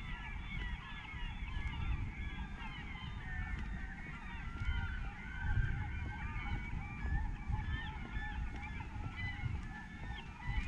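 A large flock of birds calling all at once: many short, overlapping calls crowd together into a continuous clamour, with a low rumble underneath.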